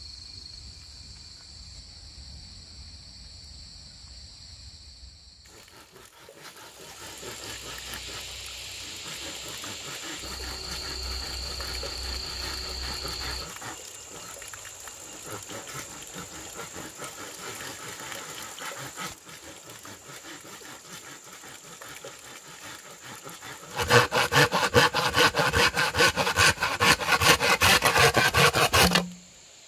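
Steady chirring of night insects, then near the end a knife blade sawing quickly back and forth through a green bamboo tube for about five seconds, the loudest sound here.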